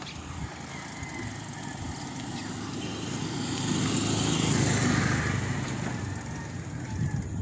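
A motorcycle passing close by: its engine grows louder to a peak about halfway through and then fades away.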